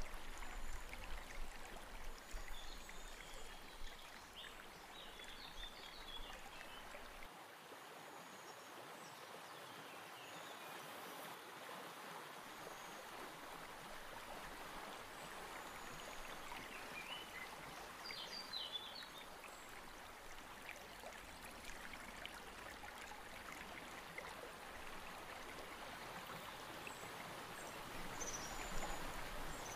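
Faint steady rush of river water, with a few brief bird chirps now and then.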